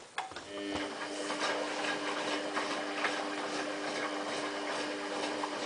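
Samsung WF8804RPA washing machine running in its service test mode: a click, then a steady hum with light ticking sets in about half a second in.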